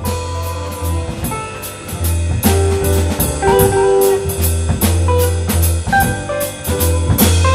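Live small-group jazz: a five-string mandolin plays the melody over a walking double bass, electric keyboard and drum kit.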